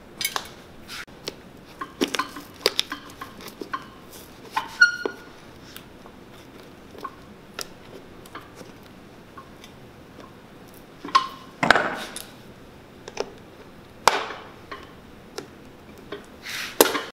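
Scattered sharp clicks, snaps and scrapes of a knife and pincers prying the worn sole and its small brass tacks off a cowboy boot, with a few longer tearing scrapes a little over halfway through.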